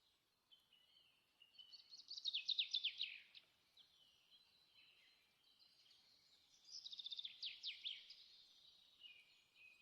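A songbird singing, faint: two bursts of rapid chirping trills made of quick falling notes, about two seconds in and again about seven seconds in, with softer chirps between.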